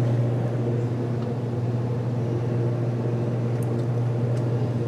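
1961 VW Beetle's air-cooled flat-four engine idling steadily with an even low hum, on its first test run after rewiring.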